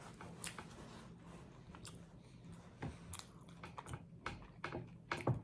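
Close-miked eating: irregular crisp clicks and crunches of chewing, with the loudest cluster near the end.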